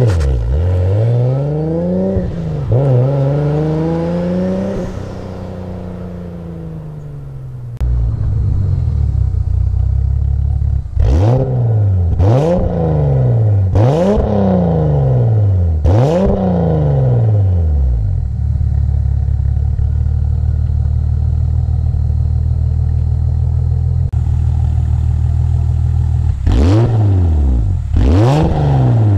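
Turbocharged 3.4-litre stroker Toyota 2JZ straight-six in a BMW E36, still being run in with a low rev limit, revved over and over. The first few seconds hold two longer rises and falls in revs that ease down. After that come four quick throttle blips from idle, a steady idle, and three more quick blips near the end.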